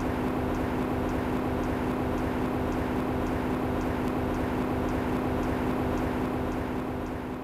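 Steady mechanical hum of room machinery with a strong held tone and a faint, regular high tick about twice a second; it starts to fade out near the end.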